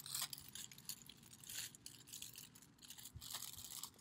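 Plastic wrapping rustling and wooden garden stakes clicking and knocking lightly together as a bundle of stakes is unwrapped and handled. The sounds are faint, with scattered short clicks.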